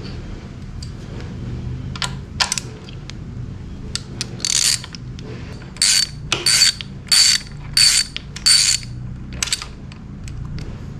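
Hand ratchet wrench clicking in a series of short strokes, about two a second, with lighter metal clicks before them.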